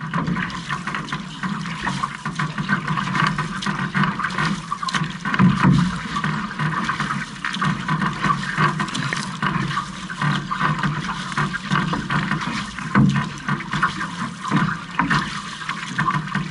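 Water rushing and splashing along the hull of a six-person outrigger canoe under way, with the splashes of the crew's paddle strokes coming again and again.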